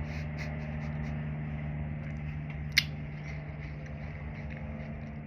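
Quiet eating of a frozen fruit bar: small wet mouth clicks, with one sharp click about three seconds in, over a steady low hum.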